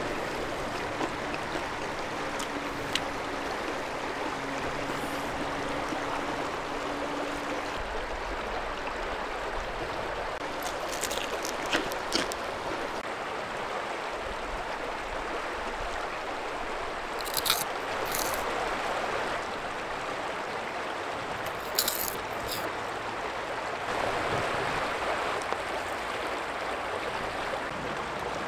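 Shallow river flowing steadily over stones. A few sharp metallic clinks of metal tongs against a stainless wire rack and tray stand out over it, two pairs in the middle and one more a little later.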